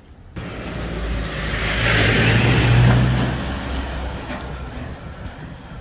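A car driving past on the street: engine hum and tyre noise swelling to a peak near the middle, then fading away.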